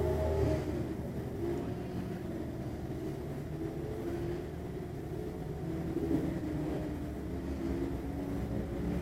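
Sports-car racing engines heard from about six miles away. Several overlapping engine notes make a steady drone, each rising and falling in pitch as the cars accelerate and shift gears.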